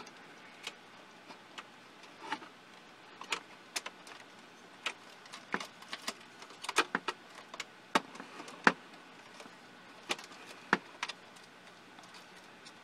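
Irregular small clicks and taps of metal brackets and wire connectors being handled inside an open laser projector's sheet-metal chassis.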